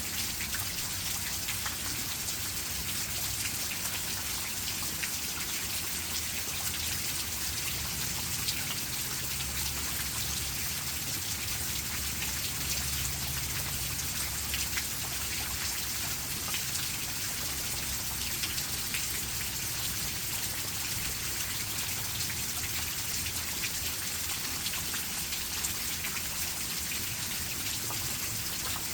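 Steady rain falling, a dense even hiss of countless drops, with a low rumble underneath that swells in the middle stretch.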